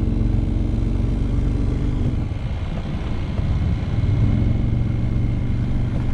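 A vehicle's engine running as it drives: a steady low hum whose pitch drops about two seconds in and picks up again about four seconds in.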